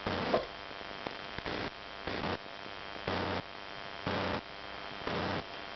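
Steady electrical hum and hiss, broken about once a second by a short burst of noise.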